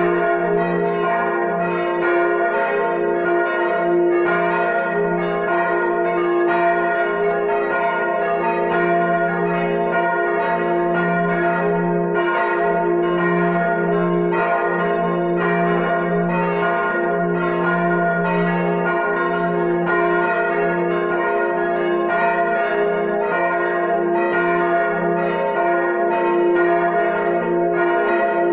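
Full peal of four church bells, tuned des'', b', as' and f', ringing together with several strokes a second overlapping over a steady ringing hum.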